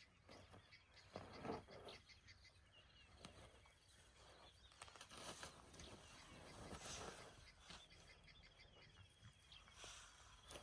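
Near silence: faint outdoor ambience with a few soft scuffs and faint high bird chirps.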